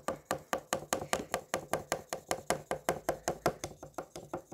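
Green dry-erase marker tapping and scratching against a whiteboard in quick zigzag strokes, about six short strokes a second, while grass is drawn.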